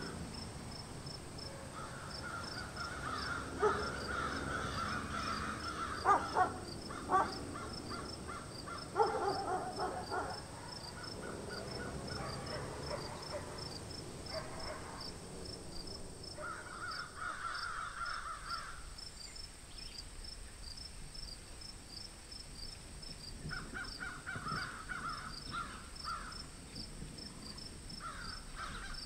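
Crows cawing in repeated runs of harsh calls, over a high insect chirp repeating about twice a second. A few sharp clicks come in the first ten seconds.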